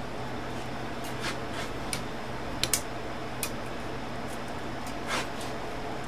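A few faint, scattered clicks and light taps of metal parts as an Underwood typewriter's mechanism is handled, two of them close together near the middle, over a steady low hum.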